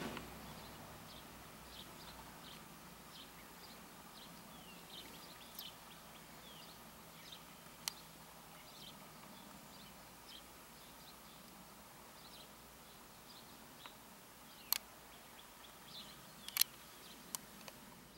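Small birds chirping: many short, high chirps scattered throughout, some falling in pitch, over faint steady background noise. A few sharp clicks come in the second half.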